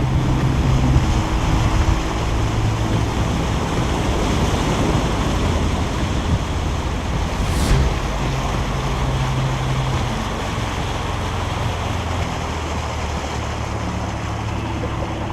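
Boat motor running steadily, with wind rushing over the microphone and the noise of water.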